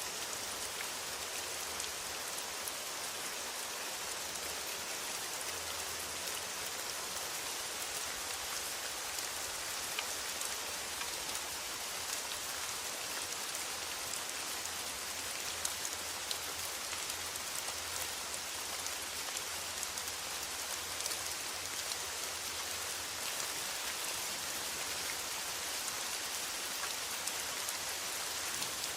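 Steady rain falling on a metal roof: an even hiss with many small drop ticks.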